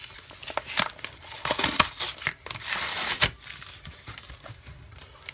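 Plastic blister packaging crinkling and crackling as it is handled and pulled apart, a string of sharp crackles that dies down after about three and a half seconds.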